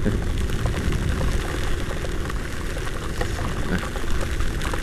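Steady rushing noise of heavy rain and wind buffeting the microphone while riding a Honda Vario 125 scooter through a downpour, with a dense low rumble underneath.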